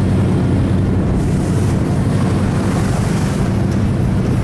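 BRDM armoured scout car's engine running steadily while driving, heard from on board, with wind buffeting the microphone.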